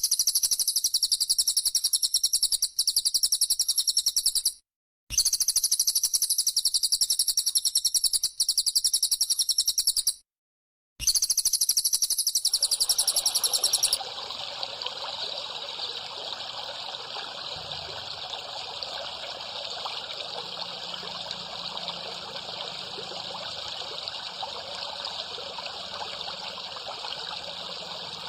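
A rapid, high-pitched chirping trill from a bird-song training recording, repeated in stretches of about five seconds with abrupt dead gaps between them. About fourteen seconds in it gives way to a steady trickle of running water.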